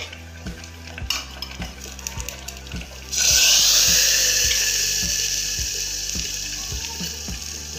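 Hot ghee tadka with cumin, asafoetida and ajwain poured onto cooked saag in an aluminium pot: a sudden loud sizzle about three seconds in that slowly dies away. Before it, a few light knocks of the pot lid and pan.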